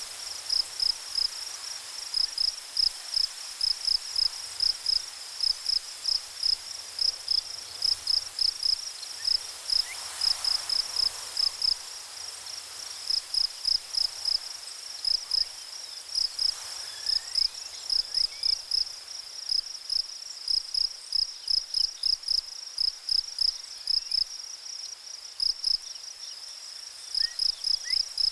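Insect chirping: one high-pitched pulse repeated evenly about three times a second, in runs broken by short pauses.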